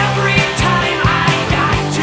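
Background rock music with a steady drum beat, distorted guitar and singing.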